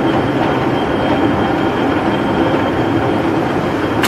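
LeBlond 18-by-102-inch engine lathe running steadily, its gearing and drive giving a constant mechanical noise with a high whine while the carriage travels under power feed toward the chuck. A sharp click about four seconds in as a carriage lever is thrown.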